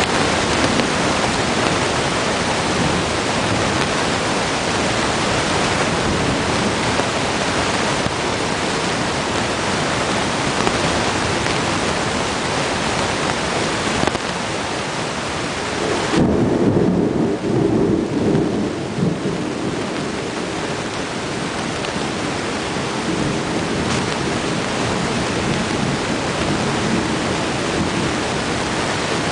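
Heavy rain falling steadily on pavement, with a roll of thunder rumbling low for a few seconds a little past the middle.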